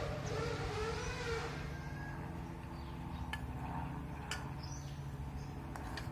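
A metal spoon clinking a few times against a stainless steel bowl while eating, over a steady low hum. In the first second and a half a wavering pitched sound is the loudest thing.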